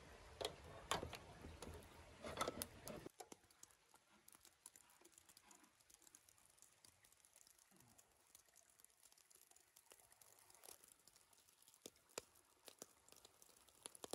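Metal skewers clicking against the grill as they are laid over the charcoal in the first few seconds, then near silence with a few faint ticks.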